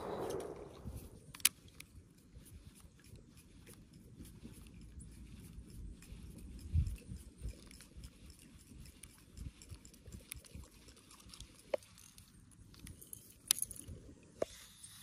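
Faint handling of a baitcasting rod and reel: a few scattered small clicks and ticks over a low, steady rumble, after background music fades out in the first second.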